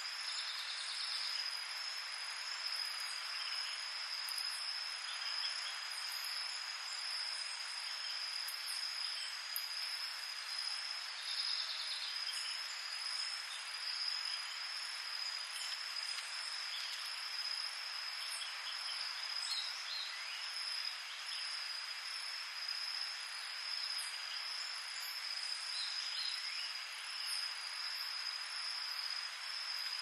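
Tropical night insect chorus: a steady, unbroken high cricket trill over a dense hiss of many insects calling together. Two short pulsed buzzes come about a second in and again near 12 seconds, and faint short chirps are scattered throughout.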